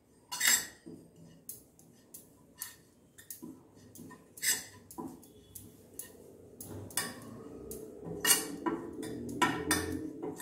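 A spoon scraping and clinking irregularly against a stainless-steel frying pan as ground spice powders are stirred and dry-roasted in it.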